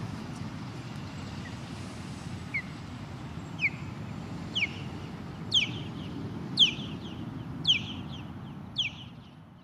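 Osprey calling: a series of seven sharp, whistled notes about one a second, starting faint, growing louder, then easing off.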